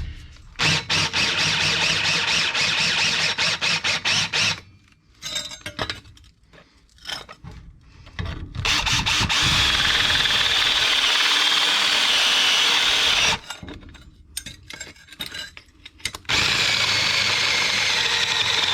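Power drill with a metal-cutting bit boring through steel, run in three steady bursts with short pauses between. Each run is a high, even whine.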